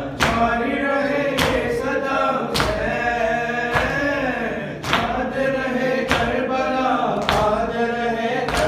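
Shia matam: a man's voice chanting a mourning lament into a microphone, while the mourners strike their chests in unison with a sharp slap about every 1.2 seconds, eight times.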